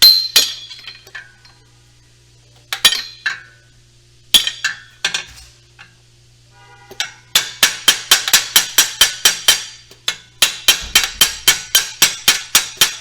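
Metal-on-metal tapping on a car's starter solenoid with a 3/8-inch socket extension: a few single strikes, then two quick runs of about five or six taps a second. The tapping is a test for a starter that only clicks and won't crank.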